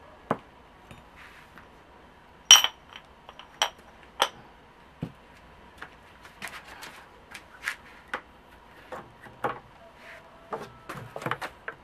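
A metal spoon clinks and knocks as it is set down near a glass jar on a kitchen table, the loudest knock about two and a half seconds in. A string of lighter clicks and taps follows as things on the table are handled.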